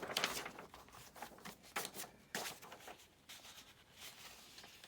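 Sheets of paper being handled and laid on a stack: short rustles and light taps, scattered and irregular.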